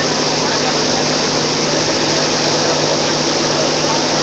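Loud, steady din of a dense street crowd, with a continuous low engine-like hum underneath and no distinct single event.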